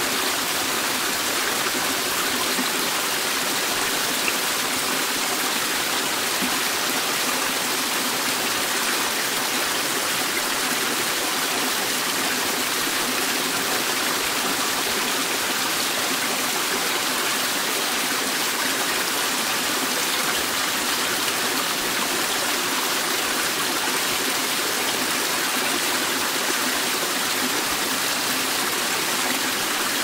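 Waterfall: a steady, unbroken rush of falling water splashing into a pool.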